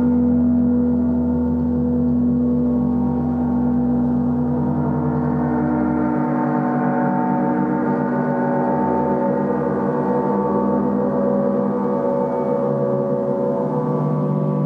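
Large gong played as a gong bath, in a sustained wash of many overtones ringing together and slowly shifting, with no single strike standing out. The deep bottom hum drops away about six seconds in.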